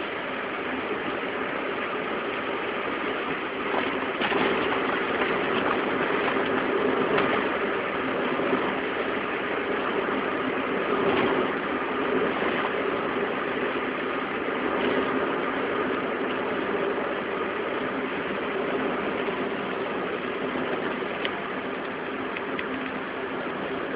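Steady mechanical running noise from a vehicle, with a constant low hum under it: the abnormal noise of a wheel hub.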